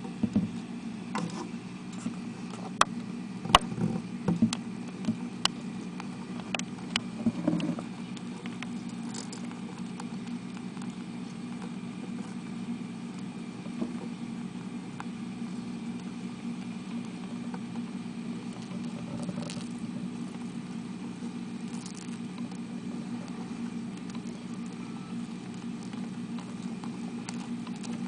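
Beetles grappling on soil, their legs and shells scratching and clicking, with a cluster of sharp clicks in the first eight seconds and only faint ticks after. A steady low hum runs underneath.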